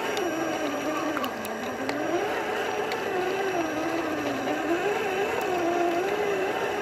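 Electric motor and gear drive of a 1/10-scale RC crawler truck whining, its pitch rising and falling continuously as the throttle is worked on the climb.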